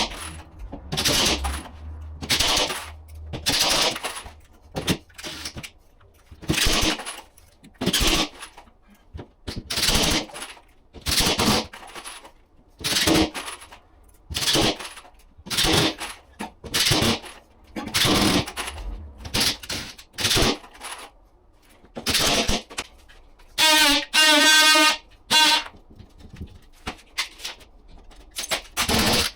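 A power driver fixing screws into plasterboard in a long run of short bursts, each lasting under a second, about one every second or so. About 24 s in, one longer burst has a steady whine.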